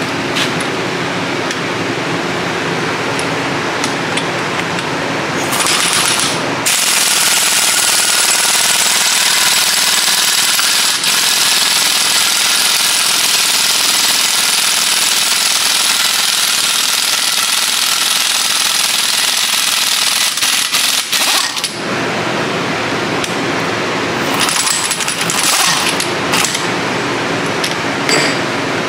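Air impact wrench hammering on the screw of a bearing puller, pulling a carrier bearing off a GM 10-bolt differential carrier. There is a short burst at about six seconds, one long steady run of about fifteen seconds, and more short bursts near the end.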